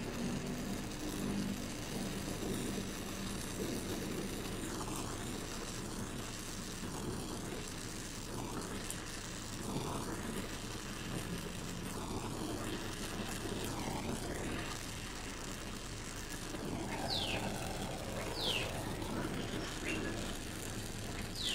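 Oxy-acetylene torch flame hissing steadily while it heats a thin aluminium tube joint and melts an aluminium welding rod into it. A few short falling whistles sound near the end.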